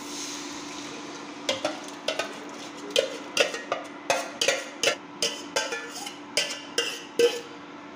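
Boiled moong dal poured from a steel pot into a kadai with a soft splashing hiss. Then a steel ladle knocks and scrapes against the inside of the steel pot in a quick run of clinks, about three a second, over a steady low hum.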